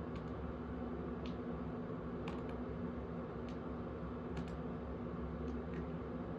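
Steady low hum with about ten faint, scattered clicks.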